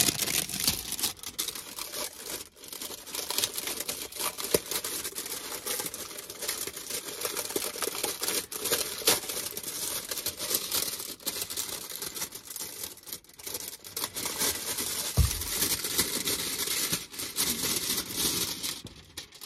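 Thin clear plastic packaging bag crinkling and crackling as hands open it and slide the booklet and cards out, with a dull bump about three-quarters of the way through.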